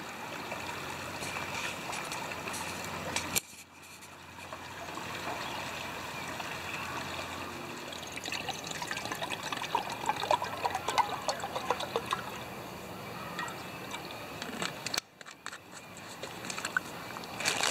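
Shallow creek water trickling steadily, with the sound dropping out suddenly about three and a half seconds in and again near the end.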